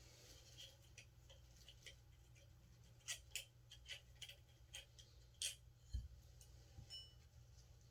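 Light metallic clicks and taps of small hand tools and hub parts being handled, irregular and scattered, thickest in the middle, with one dull low knock near the end.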